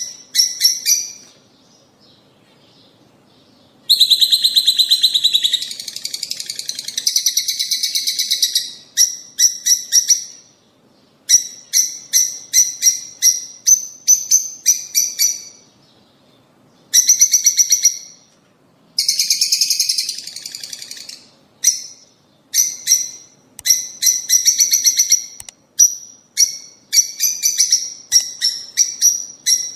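Lovebirds, rosy-faced and Fischer's, chattering in rapid trains of sharp, high chirps. The calls come in bursts of a few seconds, with brief pauses between them.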